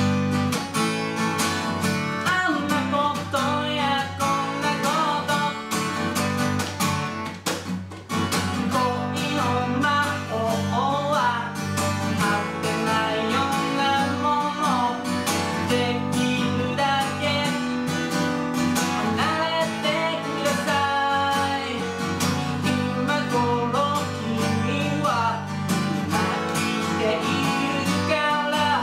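A man singing a song to his own acoustic guitar, strumming and picking chords, with a brief break in the playing about eight seconds in.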